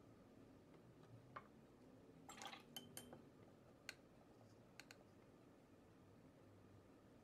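Faint clicks and light taps of a watercolour brush and painting gear, a quick cluster about two and a half seconds in and a few single ticks around it, over a near-silent room.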